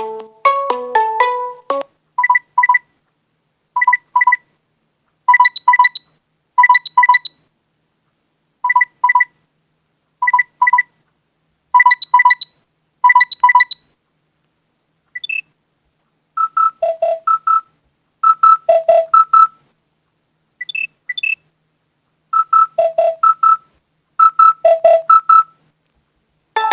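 Nexus 5X smartphone alarm tones played one after another. First comes the tail of a melodic tone, then an alarm of short double beeps repeating about every one and a half seconds. From about halfway through, a different alarm plays, with high-then-low electronic blips in groups about every two seconds.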